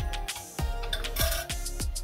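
Background music with a steady beat and low bass notes.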